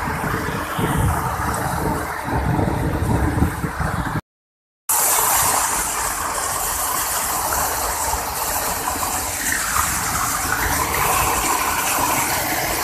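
Water rushing down a dam spillway in a steady, loud rush. It drops out for about half a second a third of the way in, then comes back brighter and hissier as water pours right over the camera.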